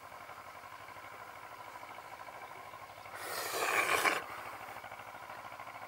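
A rustling scrape lasting about a second, some three seconds in, over a steady faint high hum.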